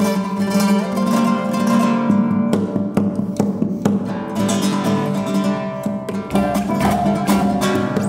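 Solo nylon-string classical guitar playing a fast passage of plucked notes over a steady low note.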